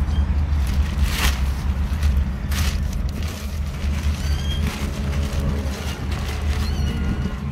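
Wind buffeting the microphone: a steady low rumble, with two gusts of rushing noise about one and two and a half seconds in. A few faint, short, high chirps come in the second half.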